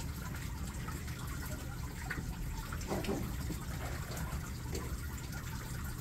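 Steady water trickling and running inside a vertical hydroponic growing tower as it circulates.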